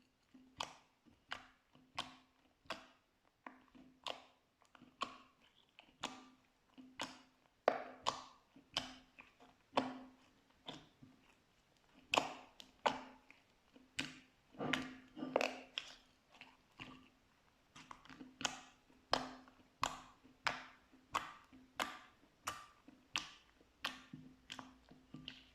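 Slime with pearls mixed in being pressed and worked by hand, making crisp, regular sticky clicks and pops about once every two-thirds of a second.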